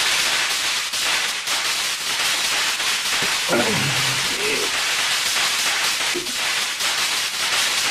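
Cartoon sound effect of a rapid, unbroken barrage of airsoft-gun shots fired at close range, so many cracks that they blur into one dense crackle. A brief voice comes in about halfway through.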